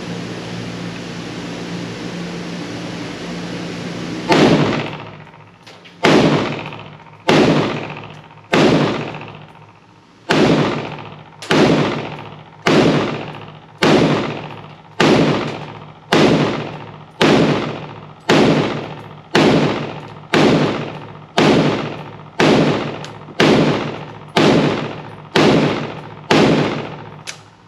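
IWI Galil ACE pistol in 7.62x51 NATO firing about twenty single shots, roughly one a second and speeding up slightly toward the end. Each shot rings out with a long echoing decay in the indoor range. A steady hum fills the first four seconds before the firing starts.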